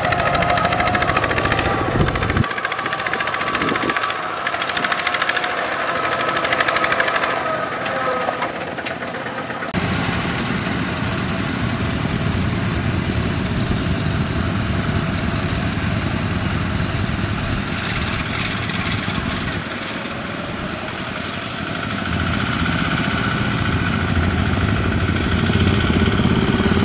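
Single-cylinder diesel engine of a Kubota RT120 two-wheel tractor chugging under load as it pulls a trailer of rice sacks. The engine note runs on steadily, with its low end dropping away for several seconds about two seconds in before coming back.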